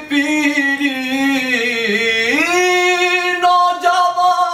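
A man's unaccompanied voice reciting an Urdu noha, a Muharram lament, drawing out a long sung note on the word "piri". The note sags in pitch, then rises to a higher held note about two and a half seconds in.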